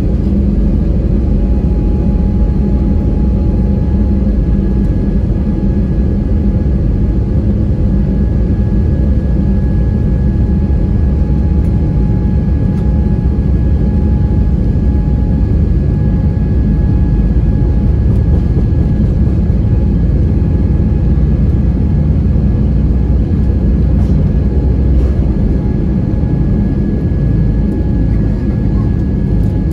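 Airbus A320neo's Pratt & Whitney PW1100G geared turbofans at takeoff power during the takeoff roll, heard from a cabin window seat. A loud, steady low rumble of engines and runway, with a steady whine that sets in about a second in.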